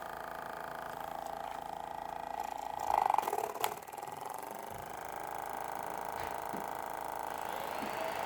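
Small DC motor of a cardboard mini washing machine running with a steady whine. About three seconds in there is a brief louder rattle, then a sharp click.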